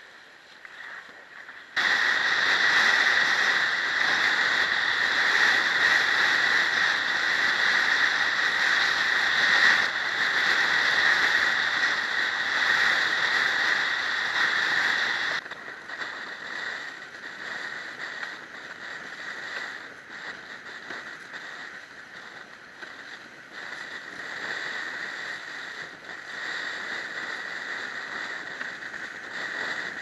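Windsurf board planing fast across open water: a steady rush of water and wind noise against the camera. It jumps suddenly louder about two seconds in and drops back just as suddenly about halfway through.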